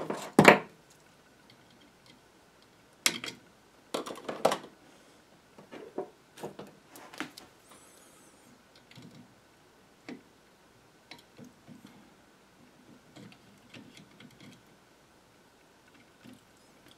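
Irregular small clicks and knocks of hand tools, wire and components being handled while wiring a power supply chassis, with a sharper knock about half a second in and sparser, quieter ticks in the second half.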